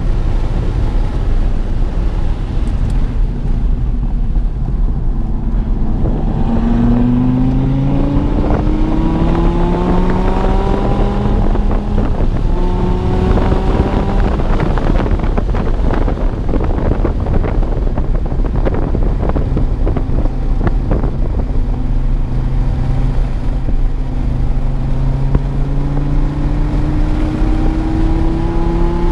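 2016 Dodge Viper TA 2.0's 8.4-litre V10, running with headers and a tune, driven hard on track. The engine pitch climbs in long pulls with drops between them, which are gear changes. A rougher, choppier stretch comes around the middle, and a long steady climb comes near the end.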